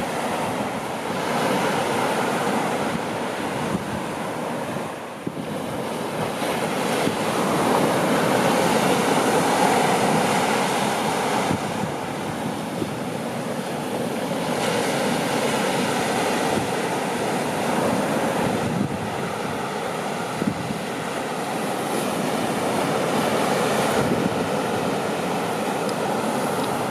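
Sea surf breaking and washing up the beach, mixed with wind buffeting the microphone; the noise swells and eases as waves come in, loudest around a third of the way through.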